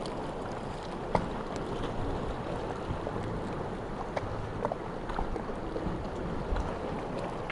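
Sea water lapping and sloshing in a steady wash, with scattered small splashes and drips.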